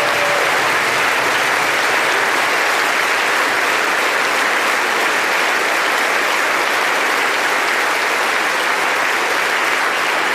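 An audience applauding steadily, a dense unbroken clapping.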